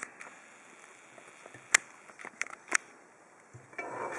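Handling of a just-picked Abus 85/40 padlock and its picking tools: a handful of sharp metallic clicks, the loudest a little under two seconds in, then softer handling noise near the end.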